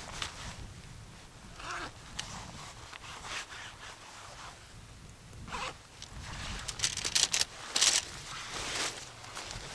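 Camping gear being handled: short rustles and scrapes, with a quick run of clicks about seven seconds in and a sharper scrape soon after.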